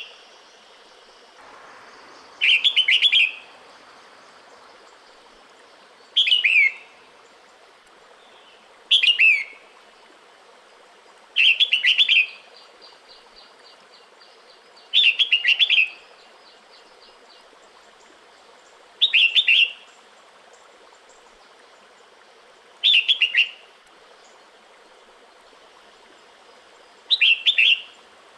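Female red-whiskered bulbul calling, a breeding-season call to a male: eight short, bright phrases of a few quick notes that mostly slide downward, each under a second and repeated every three to four seconds.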